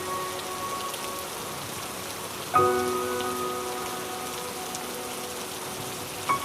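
Steady rain falling, an even hiss of drops. Over it, soft background music strikes a sustained chord about two and a half seconds in and another near the end, each ringing on and fading.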